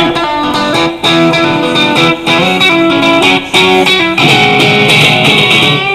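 A guitar strumming and picking chords in a live song's instrumental passage, with no singing.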